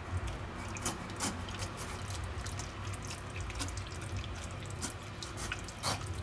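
Gravy dripping and trickling through a stainless-steel mesh sieve into a small pot as cooked vegetables are pressed through with a fork. A few light clicks come from the fork against the mesh.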